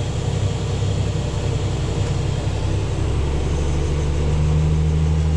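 Large farm tractor's diesel engine running steadily under load, pulling a grain cart. About three seconds in the engine note shifts and grows a little louder.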